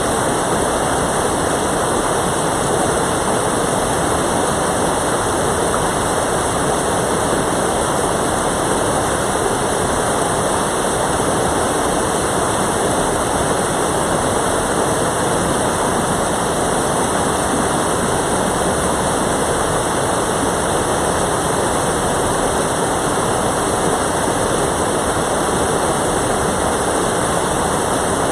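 Mountain valley stream rushing over rocks, a steady loud flow of water without a break.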